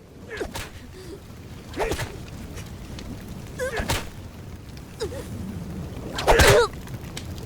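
About four sharp blows a second or two apart, each with a short strained cry or grunt. The last, near the end, is the loudest.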